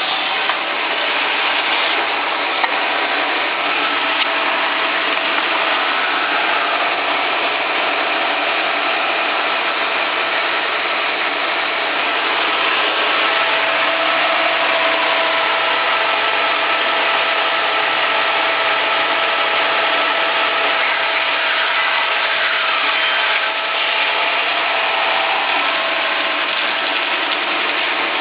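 Meber SR900 industrial resaw band saw running steadily, its blade riding on 36-inch solid wheels without tires, with a continuous mechanical hum and a few faint steady tones.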